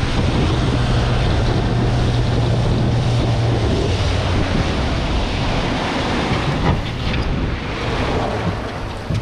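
Boat underway at speed on open ocean: heavy wind on the microphone and the rush of water and wake along the hull, over the outboard motor's steady low hum, which drops lower in pitch about four seconds in.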